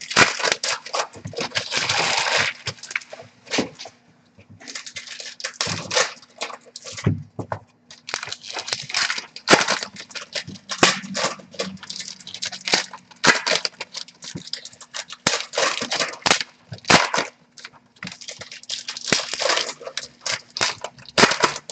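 Trading card packs and boxes being torn open by hand: wrappers crinkling and tearing in irregular bursts, with short pauses.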